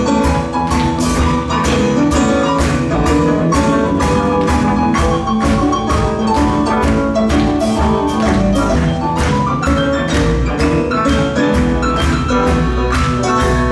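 Live rhythm-and-blues band playing an instrumental passage, a keyboard solo over drums keeping a steady beat of about two strikes a second.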